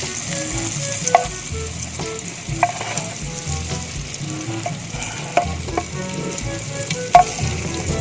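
Egg omelet frying in butter in a nonstick pan, a steady sizzle, with a few sharp clicks of a utensil against the pan.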